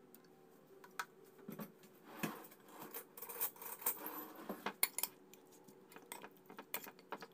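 Metal spoon clinking and scraping against a ceramic bowl as raw chicken wings are mixed into their marinade: quiet, irregular clinks and short scrapes.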